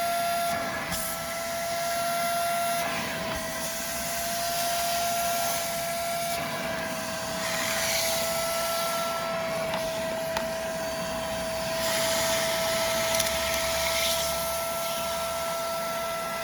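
Hoover FH11300PC Spotless portable upholstery cleaner running, a steady motor whine that shifts slightly in pitch now and then. A hiss of suction swells and fades several times as it extracts water from the fabric seats.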